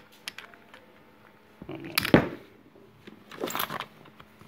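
Handling noise as a plastic parts packet is picked up: light clicks, then a loud crinkling rustle about two seconds in and a second, higher one near the end.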